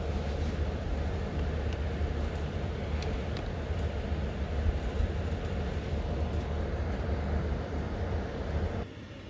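Steady low rumble with a few light clicks, dropping off suddenly near the end.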